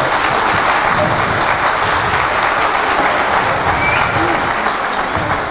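Audience clapping and cheering steadily, with a few voices calling out over it.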